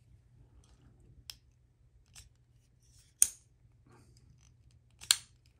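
Chris Reeve Large Sebenza 31 titanium frame-lock folding knife being flicked open and shut with its pivot screw loosened. There are two sharp metallic clicks a little under two seconds apart, about three and five seconds in, and fainter clicks before them.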